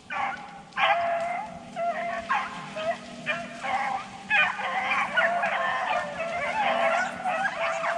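A pack of beagles baying as they run a rabbit, their long, bending bawls overlapping. From about four seconds in, more voices join and the pack is in full cry.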